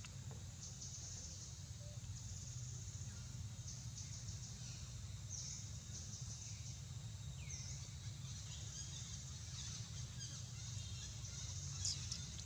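Forest ambience: a steady high-pitched insect chorus over a low rumble, with a few short falling bird calls about five and seven seconds in, and a sharp click near the end.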